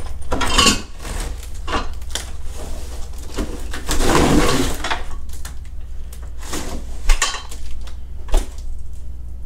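A folding steel welding table being worked out of its cardboard box: cardboard scraping and rustling, with clinks and knocks from the steel parts. A longer scraping rustle comes a little before halfway, and two sharp knocks come near the end.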